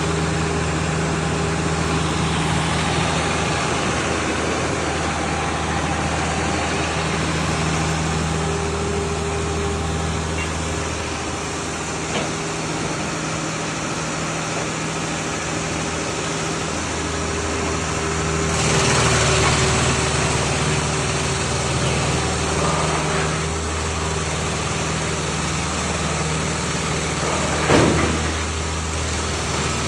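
Diesel engine of an SL-216 drum wood chipper running steadily at speed. About two-thirds of the way in, a louder rush of noise rises over it, and a sharp knock comes near the end.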